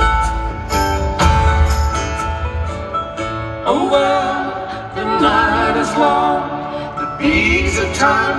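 Live band playing a slow folk-rock song on guitars, upright bass and drums, with a low, pulsing beat in the first few seconds. About three and a half seconds in, singing comes in with long, gliding vocal lines over the instruments.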